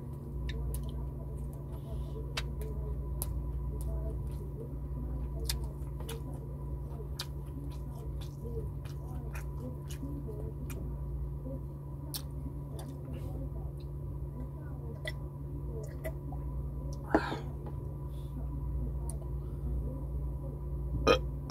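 Close-up chewing and wet mouth sounds from a man eating rice and fried fish by hand, with many small sharp clicks, over a steady low hum. About four-fifths of the way through there is a brief, louder mouth or throat sound.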